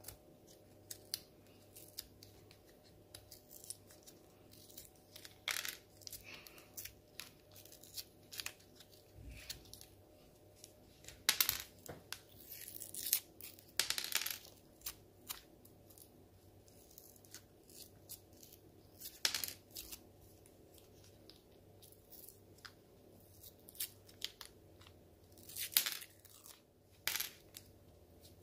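Pez candy refill wrappers being peeled and torn open by hand: a run of small crinkles and clicks, with a few louder tearing rustles midway and near the end.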